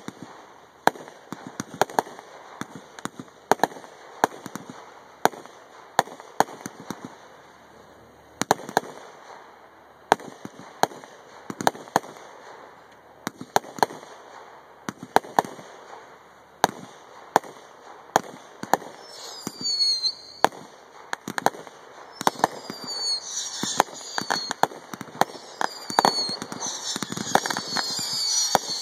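A rapid series of aerial firework shells going off as a multi-shot sequence, sharp bangs coming a little more than once a second. From about two-thirds of the way in, high whistles that fall in pitch join the bangs. Near the end a dense crackling builds and grows louder.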